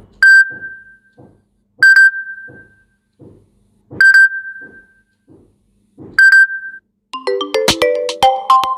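Samsung Galaxy M21 stock ringtones playing. One ringtone has a single bright high ping about every two seconds, with soft low taps in between. About seven seconds in, a different ringtone starts: a quick melodic run of synth-chime notes.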